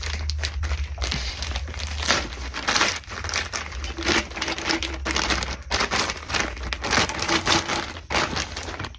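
Packing material crinkling and rustling as an exhaust header pipe is unwrapped and lifted from its box, with a steady low hum underneath.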